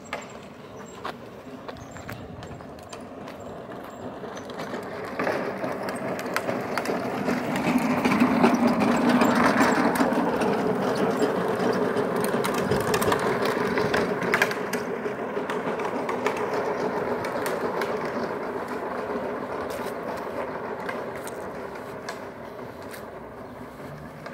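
Custom 24-volt electric children's trike running, its electric motor whining steadily over the rumble of its wheels on asphalt. It grows louder as the trike comes close, loudest about eight to ten seconds in, then fades slowly as it rides away.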